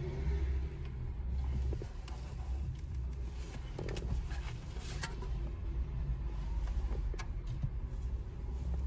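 Scattered sharp clicks and rustling as the car's factory radio unit and its cables are handled and unplugged behind the dashboard, over a low steady rumble.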